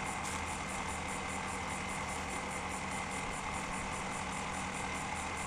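A steady, unchanging droning hum with a faint high steady tone over it; no separate sound from the rope or poles stands out.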